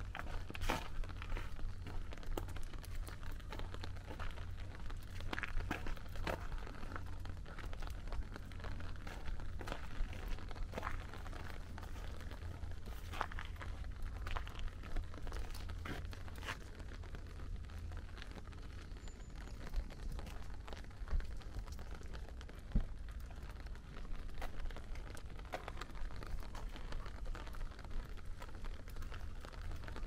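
Raindrops pattering irregularly on an umbrella, scattered taps and crinkles over a steady low rumble.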